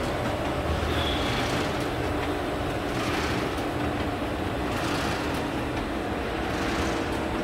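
Steady hum of running industrial machinery, with a low steady tone under a broad mechanical rush.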